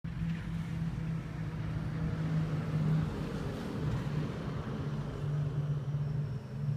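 USA Trains G-scale model NYC PA-1/PB-1 diesel locomotives running on analog (DC) track power, giving a steady low motor hum with a rushing noise over it.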